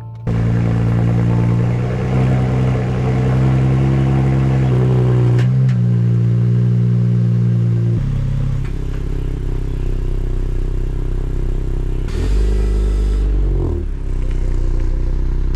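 Porsche car engine starting just after the beginning and running at a fast, steady idle, its note dropping about eight seconds in. A deeper rumble follows near the end as the car is moved.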